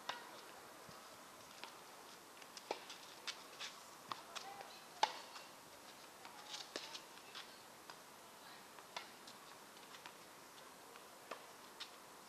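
Tennis ball being struck by rackets and bouncing on an outdoor court: faint, irregular sharp pocks, the loudest about five seconds in.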